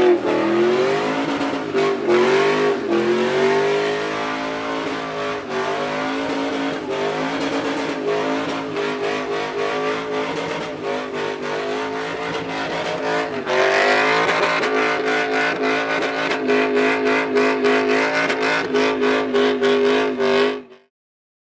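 Chevrolet Silverado pickup engine held at high revs during a burnout, with tyre hiss as the rear wheels spin. From about two-thirds of the way in, a rapid run of crackling pops rides over the engine, then all sound cuts off suddenly near the end.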